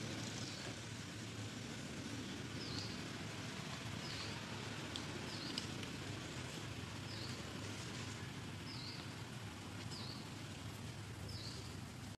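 Outdoor ambience with a steady low hiss, and a bird repeating a short, high chirp about every second and a half.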